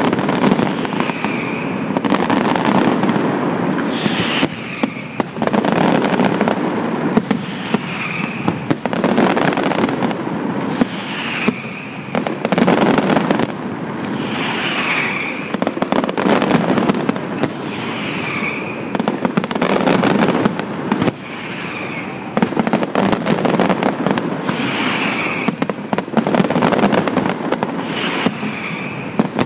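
Fireworks display (castillo de fuegos artificiales): a continuous barrage of rockets bursting, with sharp bangs coming several times a second over steady crackling.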